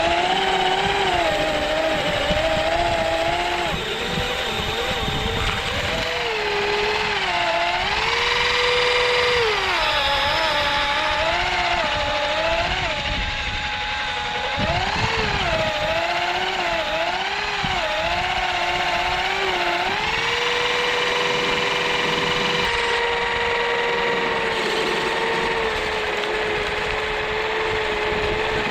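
Electric motors of a Kyosho Blizzard SR RC snowcat and its 3D-printed snow blower whining, the pitch rising and falling over and over as the throttle is worked, then holding steadier in the last third.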